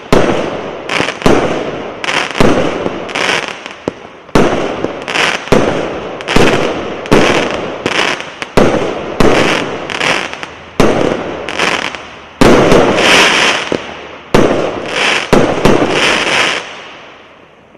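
A 1-inch, 49-shot multishot fireworks cake firing, roughly one loud shot a second, each followed by a short crackling burst that fades. The shots stop about a second before the end as the cake finishes.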